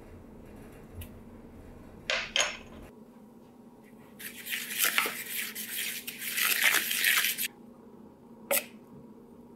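Two quick taps about two seconds in, then a wooden spoon stirring dry pancake ingredients (flour, salt, sugar) in a plastic mixing bowl: scraping for about three seconds. One more tap near the end.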